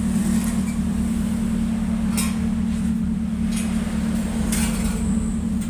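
Toyota Avanza 1.3-litre four-cylinder engine idling steadily through an aftermarket 4-1 header and straight-through pipe (stock middle silencer removed, resonator and rear muffler retained), giving a steady low exhaust note. A few brief high ticks come over it about two, three and a half, and four and a half seconds in.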